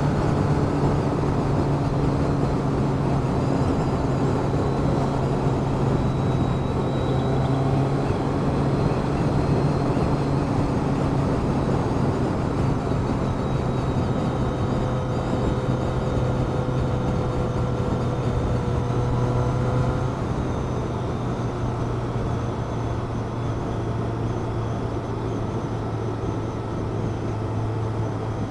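Vehicle engine running steadily at cruising speed, a low hum under wind and road noise, easing off slightly about twenty seconds in.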